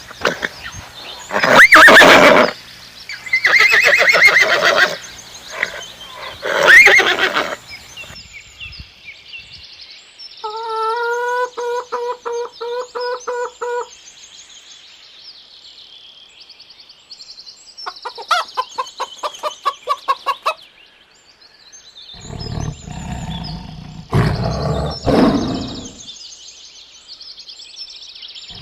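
A series of different animal calls, one after another. First come several loud, rough calls that are most likely horse neighs and snorts. Next is a rapid pulsed, pitched call, then a second pulsed call, and last some loud, low, rough calls near the end, with high chirping behind them from about a third of the way in.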